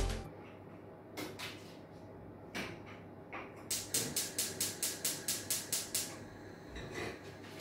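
Kitchen handling sounds: a few scattered light knocks, then a quick, even run of about a dozen sharp clicks, about five a second, and one more knock near the end.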